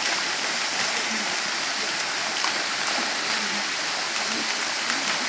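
Steady rush of running water, an even hiss with faint voices underneath.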